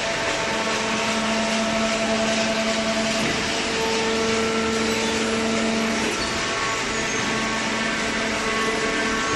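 Hydraulic baler running: a steady, loud mechanical hum and hiss with a droning tone that drops out and returns every few seconds, as the pump's load changes.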